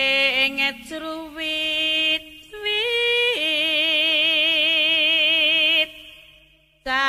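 Javanese palaran singing: a solo voice sings melismatic phrases with wide vibrato, holds one long wavering note for about two and a half seconds, breaks off, and comes back in just before the end.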